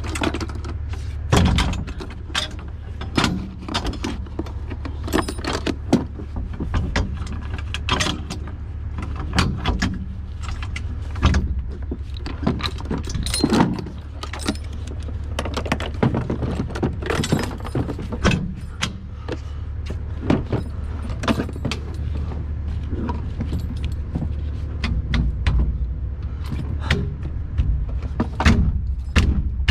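Steel latch hardware and a chain on a chip truck's rear tailgate being handled: repeated metallic clanks, clicks and jingling rattles. A truck engine idles steadily underneath.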